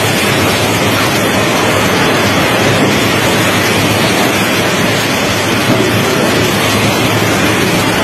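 Violent windstorm with heavy rain: a loud, steady rushing noise of wind and driving rain.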